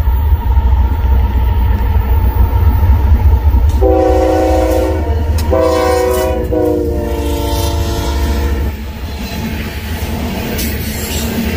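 Union Pacific diesel freight locomotives passing close with a grain train, engines and wheels making a heavy low rumble. About four seconds in the multi-chime air horn sounds three times, two shorter blasts and then a longer one whose pitch drops as the locomotives go by. After that the covered hopper cars roll past with wheel clatter.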